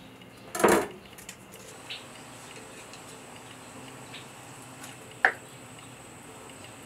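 Kitchen handling sounds: a short clattering scrape about half a second in, then a single sharp clink against the aluminium soup pot a little after five seconds, as soft tofu is tipped from its plastic tray into the pot.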